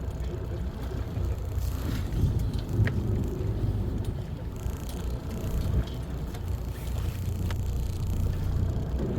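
A fishing boat's engine running steadily, a low rumble with a few faint ticks on top.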